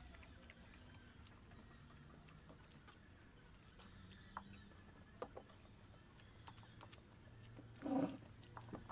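Faint scattered clicks and smacks of two people eating with their hands: chewing and picking at food. A brief voice sounds about eight seconds in.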